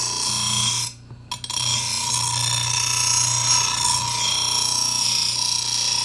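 Angle grinder grinding the edge of a steel lawnmower blade: a loud, steady grinding hiss with a constant whine. It cuts out briefly about a second in, then resumes.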